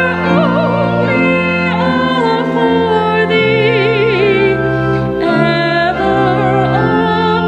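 A woman singing a hymn solo with a wide vibrato, accompanied by sustained organ chords.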